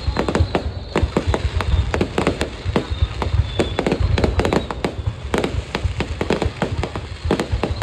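Fireworks display: a dense, continuous barrage of bangs and crackling, several bursts a second, with a deep rumble beneath.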